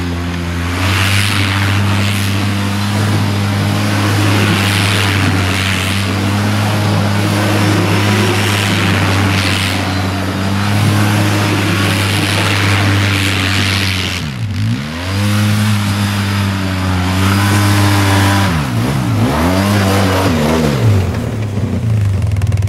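Polaris Sportsman 700 ATV engine running hard as the quad spins donuts in the snow. Its steady note swoops down and back up several times in the second half as it swings past, over rushes of hiss from the tyres throwing snow.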